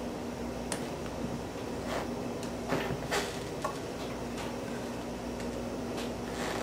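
Slotted metal spatula sliding under cookies and scraping on a metal baking sheet: a few faint scrapes and light clicks at irregular moments, over a steady low background hum.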